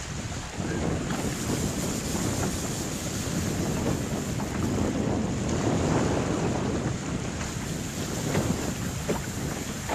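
Wind buffeting the microphone over choppy open water, a steady rushing with waves underneath and a few short knocks near the end.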